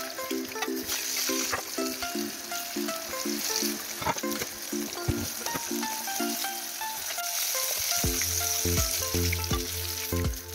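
Fish pieces deep-frying in hot oil in a pan, a steady sizzle with a few sharp clicks, over background music; a bass line comes into the music about eight seconds in.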